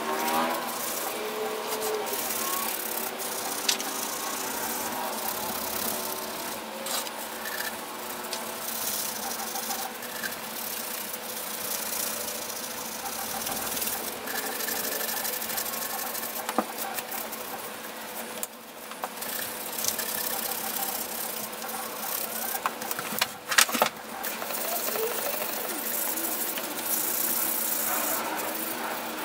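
Scouring pad scrubbing the aluminium housing of a vintage Porter Cable BB10 belt sander, a continuous rasping over a steady hum, with a few sharp knocks, the loudest about three-quarters of the way through.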